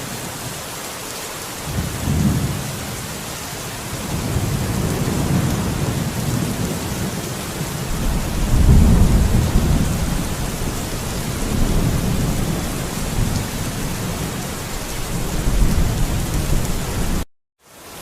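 Steady rain with thunder rumbling low and rolling, swelling in waves and loudest about halfway through. Near the end the sound cuts out suddenly for about half a second, then comes back.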